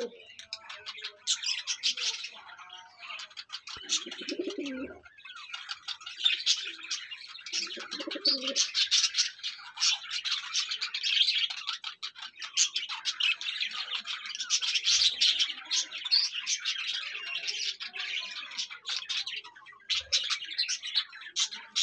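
A dense flock of small cage birds chirping and chattering without a break, with a dove cooing twice, about four seconds in and again about eight seconds in.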